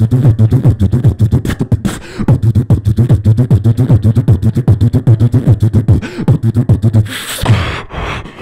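Solo beatboxing into a handheld microphone through a PA. A fast, steady groove of deep humming bass and kick sounds runs under rapid clicks and ticks. About seven seconds in, the beat gives way to a louder, hissing rush.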